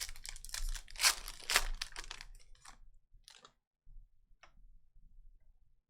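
A trading-card pack's wrapper being torn open and crinkled, a run of sharp tearing rips loudest about a second in, followed by a couple of light taps as the cards are handled.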